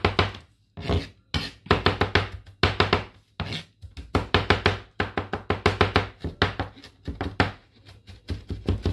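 A chef's knife mincing garlic on a cutting board, in quick runs of strokes several a second, broken by short pauses.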